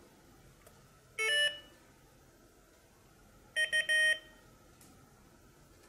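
Morserino-32 Morse trainer beeping through its small built-in speaker: one short beep of a different pitch about a second in, signalling that the echoed 'ur' was right, then about three and a half seconds in a short Morse character in its usual sidetone, the letter U (dit-dit-dah).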